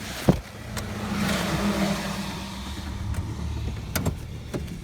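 A car passes on the wet road: its tyre hiss swells about a second in and fades away. There is a sharp click just after the start and a few more clicks near the end.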